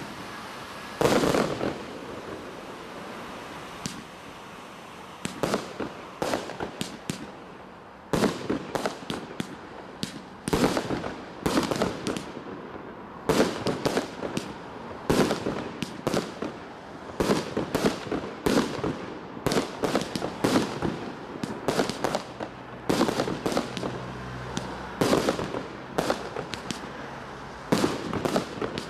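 Fireworks display going off: an irregular series of sharp bangs, a few at first and then several a second from about a third of the way in.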